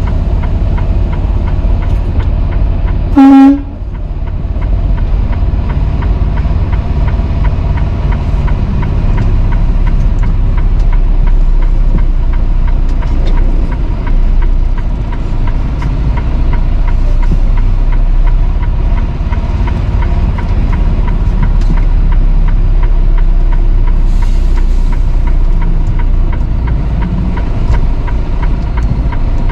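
Steady low engine and road rumble inside a semi-truck's cab, with one short, loud horn blast about three seconds in.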